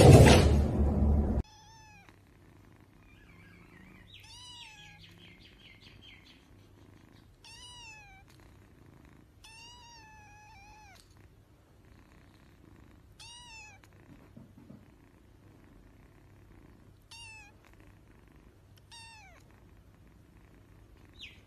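A loud burst of noise cuts off about a second and a half in. Then a tabby kitten mews about seven times, each a short high call that rises and falls, with one longer call near the middle.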